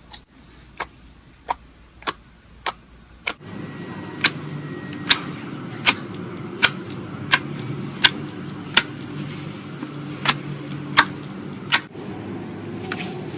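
Slime being worked by hand, giving sharp popping clicks at a regular pace, roughly one every three-quarters of a second. A low steady hum comes in after about three and a half seconds.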